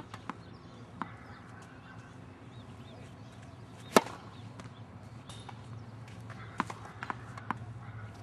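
Tennis ball struck by a racquet, one sharp pop about four seconds in, with several fainter knocks of ball on racquet or court before and after, over a steady low hum.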